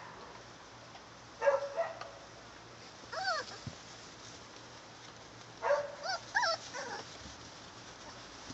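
Four-week-old pit bull puppies yipping and whining in short bursts, three times, with high calls that rise and fall in pitch.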